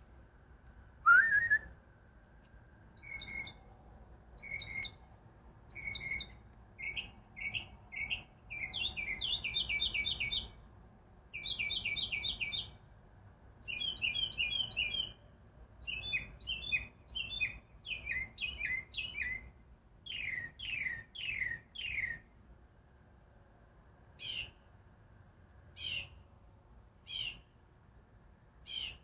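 A person whistles once, a short rising whistle about a second in, and then a mockingbird sings. It repeats each short, high phrase several times in quick series before switching to the next, and gives sparser single notes near the end.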